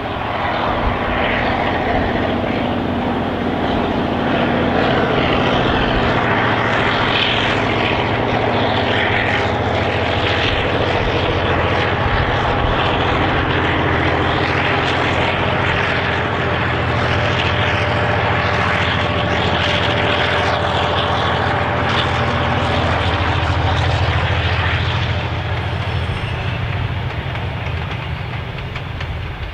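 Clyde-GM G6B (Y class) diesel-electric locomotive's EMD 567C engine working under load as it hauls a train up a bank, a steady engine drone that eases off a little near the end as it moves away.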